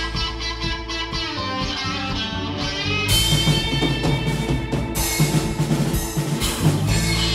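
Blues-based band playing live: guitar to the fore over bass and drum kit.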